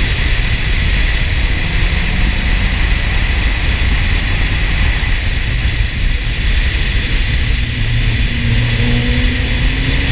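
Porsche 968's four-cylinder engine pulling along a winding road at speed, mostly buried under steady wind and road noise. The engine note rises near the end.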